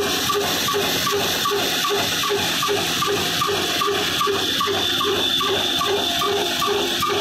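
Old Ruston & Hornsby diesel engine running steadily, beating about three times a second, over a continuous hiss from its spinning flywheels and the belt-driven flour mill it powers.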